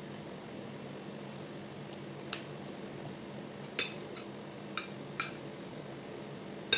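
Metal spoon and fork clinking against a plate during a meal: five sharp clinks, the loudest about four seconds in and another just at the end, over a steady low hum.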